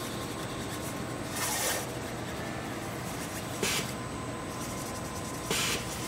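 Hunter tire changer working a tire's beads loose: three short hisses, about a second and a half in, near four seconds and near the end, over a steady machine hum.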